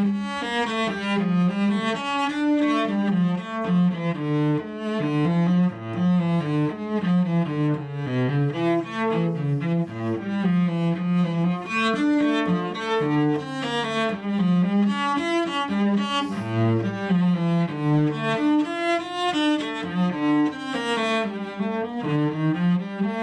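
Solo cello bowed, playing a fast passage of short notes, mostly in its lower and middle range.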